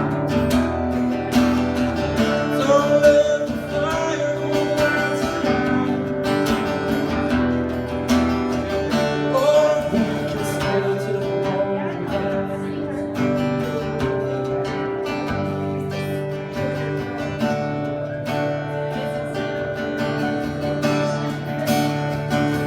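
Acoustic guitar played live, strumming chords in an instrumental passage of a song.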